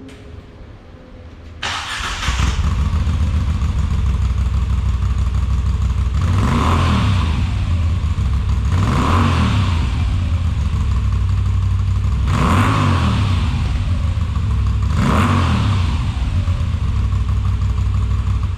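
Moto Guzzi V7 Stone Special's air-cooled transverse V-twin, fitted with Arrow aftermarket exhaust, starting up about a second and a half in and idling. It is blipped four times in evenly spaced revs, then the engine sound stops suddenly near the end.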